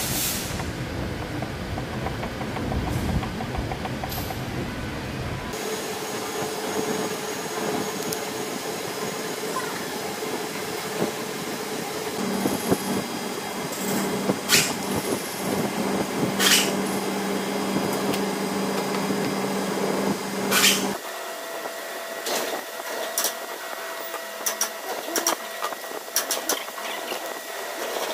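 Workshop power-tool noise: a motor-driven tool running steadily, with sharp metal clicks and taps. The sound changes abruptly about five seconds in and again about twenty-one seconds in.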